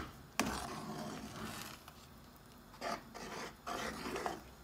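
Metal spoon stirring thick sweet pongal in a pressure cooker pot to mix in the ghee just added. It knocks on the pot about half a second in, scrapes for a second or so, and makes a few quieter stirring strokes later.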